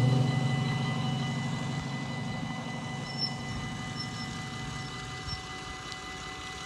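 Level-crossing warning bells ringing steadily over the hum of the barrier drives lowering the red-and-white booms. The hum dies away about five seconds in as the booms come to rest.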